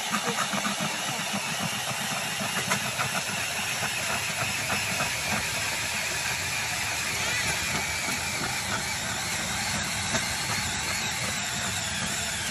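DeWalt cordless drill spinning a spiral ice auger down through ice: a steady motor whir under the dense crackle and scrape of the auger blades cutting and throwing out ice chips.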